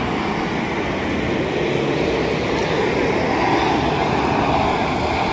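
Two pickup trucks, a Toyota Hilux and a Ford Ranger, straining against each other in a tug of war. Their engines run hard under full load and their tyres spin and scrabble on loose gravel, in a steady, unbroken mix of engine and tyre noise.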